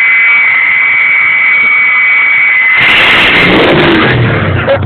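Ford 6.0 Powerstroke V8 turbo-diesel's turbocharger giving a loud, steady high-pitched whistle. A little under three seconds in, the whistle gives way to a louder rush from the engine, whose note then falls.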